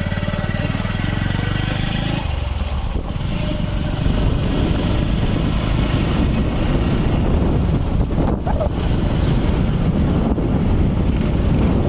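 Motorcycle riding along a road with heavy wind buffeting on the microphone. The engine's steady note is clear for about the first two seconds, then the wind rumble covers it.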